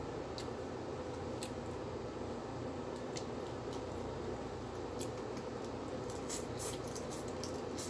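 Small clicks and crackles of eating by hand from plastic containers: fingers picking at food and chewing. The clicks come thicker between about five and eight seconds in, over a steady hum of room noise.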